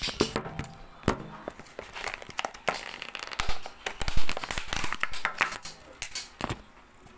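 Close rustling and crinkling with many sharp clicks and knocks, the loudest a little past the middle: things being handled right next to the microphone.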